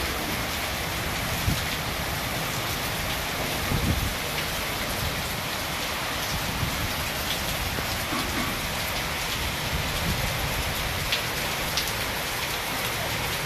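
Heavy monsoon rain pouring steadily, a dense even hiss of rain on the street, roofs and trees, with a couple of brief low bumps about a second and a half and four seconds in.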